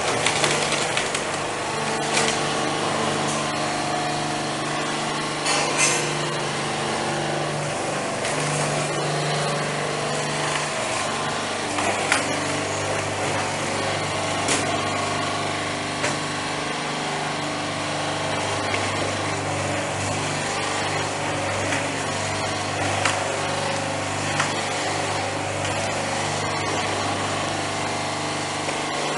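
Coconut husk peeling machine running, its rotating rollers tearing the husk off coconuts fed in by hand: a steady drone from the drive with scattered sharp cracks and clatter of husk. The drone drops in pitch about ten seconds in.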